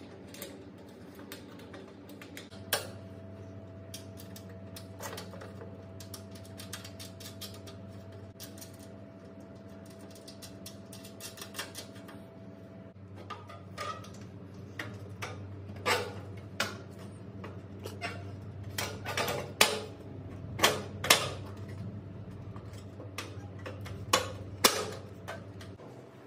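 Irregular clicks, taps and knocks of cabinet door hardware being handled and fitted by hand, sparse at first and coming thicker and louder in the second half, over a steady low hum.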